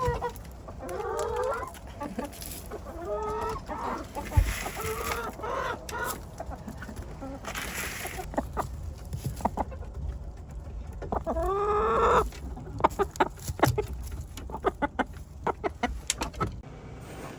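Hens clucking while feeding on scratch grain, with short calls early on, one longer rising call in the middle and many quick sharp clicks in the second half.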